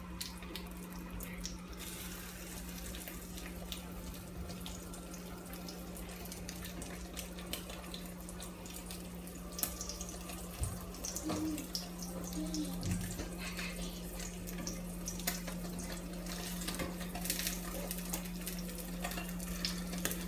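Beaten egg frying in oil in a frying pan: a steady sizzle, with crackles and pops of hot oil that come more often from about halfway through. A steady low hum runs underneath.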